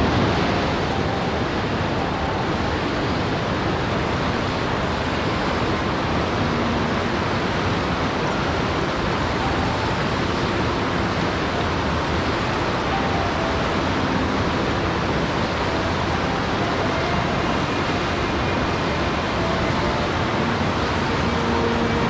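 Rushing water: a steady, even roar with no surges or breaks.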